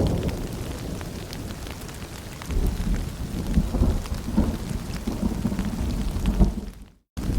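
Steady rain pattering with rolling thunder: a low rumble dies away at first, then swells again about two and a half seconds in. The sound cuts out abruptly for a moment near the end.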